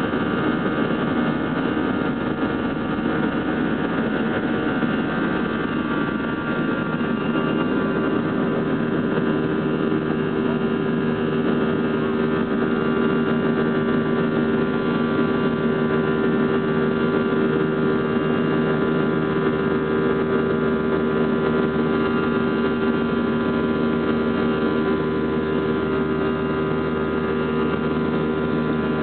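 Airbus A320 jet engines at takeoff thrust, heard from inside the cabin over the wing: a steady hum and rush as the airliner lifts off and climbs. A steady humming tone comes in about a quarter of the way in and holds.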